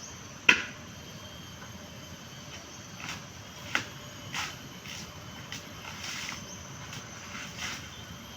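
Coconut being husked by hand with a tool: one sharp strike about half a second in, then a run of irregular softer strokes with a couple more sharper hits.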